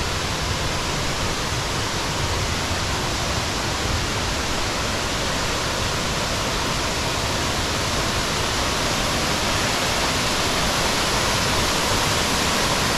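Waterfall: a steady, even rush of falling water with no breaks, growing slightly louder toward the end as the falls come nearer.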